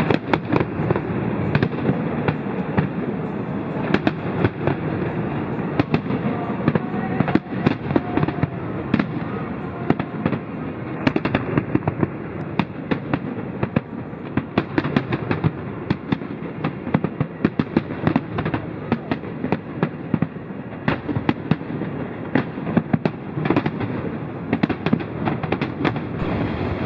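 A fireworks display: shells bursting in rapid, irregular succession, many sharp bangs a second over a continuous rumble.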